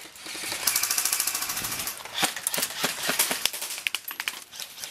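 Airsoft rifle firing a rapid full-auto burst of about a second and a half, beginning about half a second in. After it come scattered single sharp pops and clacks.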